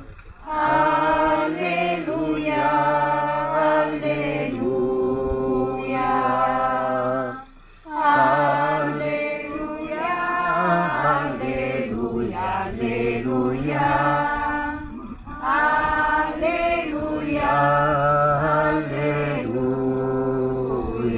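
Church choir singing the Gospel Alleluia acclamation in long sustained phrases over low held accompanying notes, with a short break about seven and a half seconds in.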